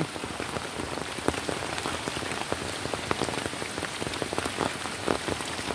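Rain falling, with individual raindrops ticking close by, over a steady rushing hiss of water from a river in flood.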